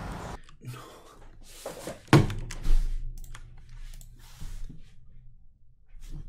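A single dull thump about two seconds in, with a few faint rustles around it over a low hum.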